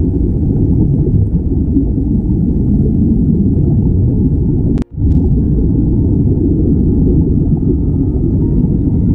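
Steady low underwater rumble of water and streaming air bubbles from surface-supplied diving helmets. It cuts out for an instant about five seconds in.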